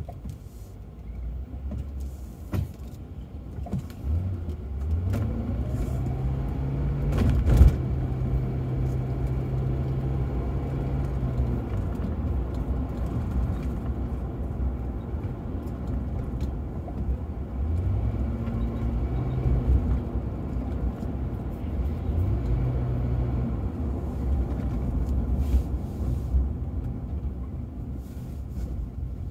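Ford Crown Victoria's V8 heard from inside the cabin, pulling away and accelerating: its note climbs, then holds steady over road and tyre noise. A sharp knock comes about seven and a half seconds in, and the engine note climbs briefly twice more later.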